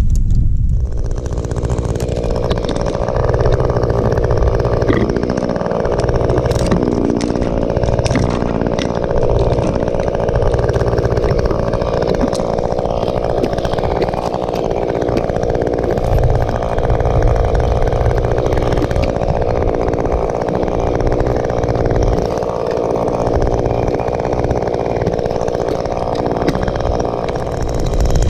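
Chainsaw engine running steadily throughout, used to cut up the storm-broken tree.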